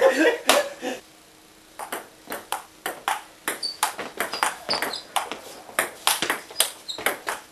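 Table tennis rally: a ping-pong ball clicking back and forth off the paddles and the table in a quick, fairly even rhythm of about two to three hits a second. After a short pause, a new rally gets going about two seconds in.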